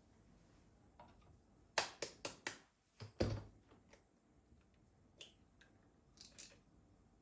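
Household objects being handled: a quick run of four sharp clicks or taps, then a heavier knock with a dull thud about three seconds in, and a few faint ticks near the end.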